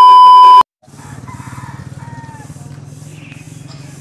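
A loud, steady 1 kHz test-tone beep from a TV colour-bar glitch transition, cutting off suddenly about half a second in. After it, a steady low pulsing engine rumble runs on, with a brief chicken call about two seconds in.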